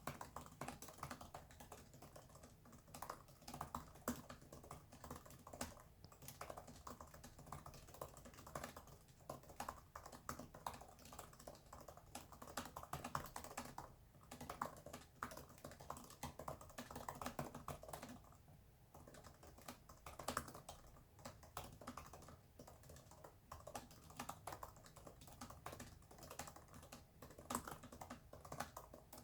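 Fast typing on a computer keyboard: a dense, irregular stream of faint keystroke clicks at roughly 97 words per minute, with a couple of short pauses about halfway through.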